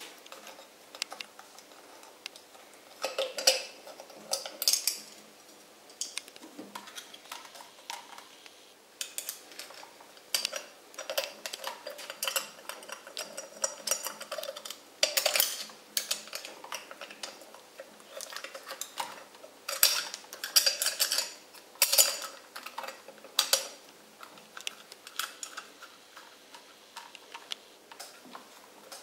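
Irregular metallic clinks, taps and scrapes in scattered clusters as a sewing-machine lamp fitting is handled and worked into place against the metal head of a MERCEDES HA-1 Class 15 sewing machine.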